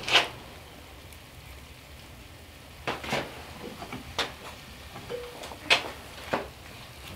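Cookware and utensils knocking and clinking about half a dozen times, spread out, over a faint steady hiss from a frying pan on a woodstove.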